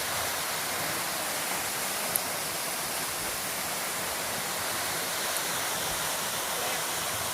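Waterfall rushing steadily, an even hiss of falling water, with one short click about two seconds in.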